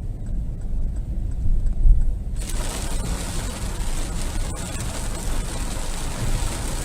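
Heavy rain and strong wind: a low rumble of wind, then about two and a half seconds in a steady hiss of rain sets in suddenly and keeps on.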